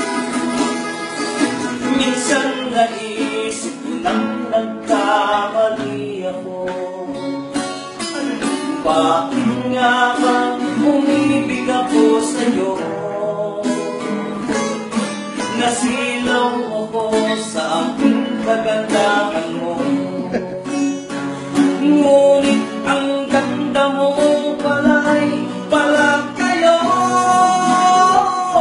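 Two acoustic guitars played together, accompanying a man singing a song.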